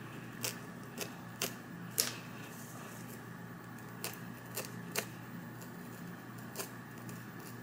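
Stainless slant-tip tweezers plucking hair from a wig's lace frontal: faint, sharp, irregular clicks about every half second, with a lull near the middle.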